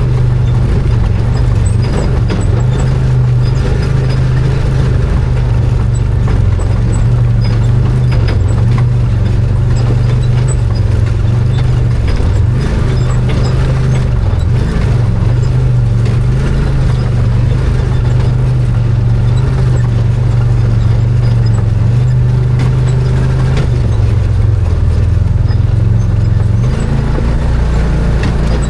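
Arctic Cat Wildcat 1000 side-by-side's engine running at a steady pace, with its pitch dipping and wavering briefly in the middle and shifting again near the end, over a constant noise and scattered clicks and knocks.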